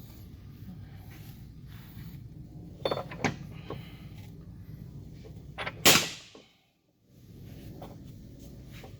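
Knocks and a loud bang from parts being handled during a truck transmission rebuild, over a steady low hum: two short knocks about three seconds in, the loud bang near six seconds, and then the sound cuts out briefly.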